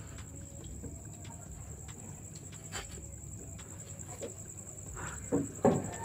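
Quiet room tone with a faint steady high-pitched whine and a few soft clicks; about five seconds in come brief soft voice sounds.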